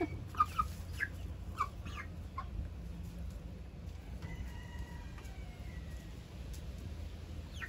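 Chickens clucking: short, high calls in the first couple of seconds, then a faint, drawn-out call lasting about two seconds, starting about four seconds in.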